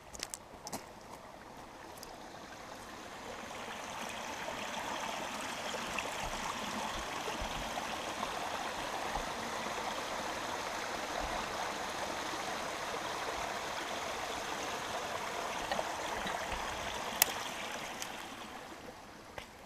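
Small forest creek running and babbling over a shallow bed. It grows louder over the first few seconds, holds steady, then fades near the end. There is one sharp click shortly before it fades.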